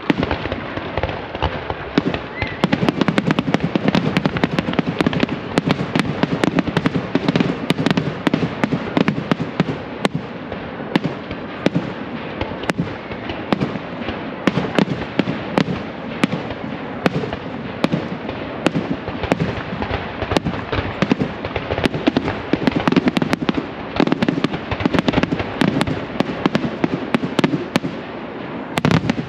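Fireworks grand finale: a continuous barrage of shell bursts and crackling, many sharp bangs a second without a break.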